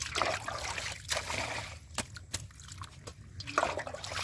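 Muddy water splashing and trickling as a metal bowl scoops it out of a small dug hole and tips it away. There are two sharp knocks about two seconds in.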